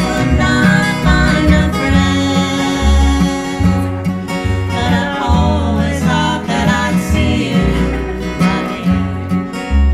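Live acoustic band music: strummed acoustic guitars over plucked upright bass notes.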